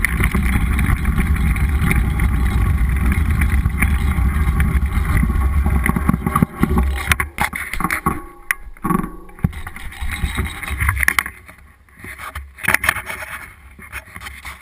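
Wind rushing over an action camera's microphone as a mountain bike runs fast down a dirt trail. About six seconds in the rushing drops away, leaving scattered clicks and rattles from the bike and its tyres on the loose, stony trail.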